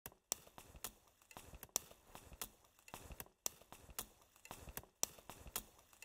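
Faint, scattered sharp clicks and crackles, irregular, a few a second, over near silence.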